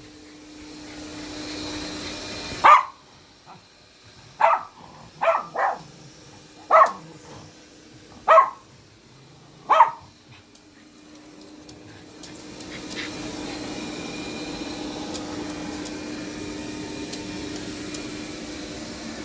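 Dog barking at a running robot vacuum cleaner: seven sharp barks spread over several seconds, over the vacuum's steady hum. After the barks stop, the robot vacuum's whirring grows louder and runs on steadily.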